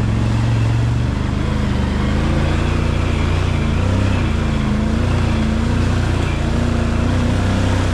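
Can-Am Outlander XMR 850 ATV's V-twin engine running steadily while riding, its pitch wavering slightly with the throttle.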